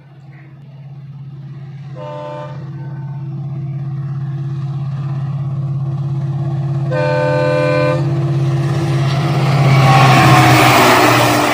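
WDP4D diesel-electric locomotive approaching, its EMD two-stroke diesel engine running with a steady low drone that grows steadily louder. Its air horn sounds twice, a short blast about 2 seconds in and a longer one-second blast about 7 seconds in. Near the end the locomotive passes close by with a loud rush of wheels on rails.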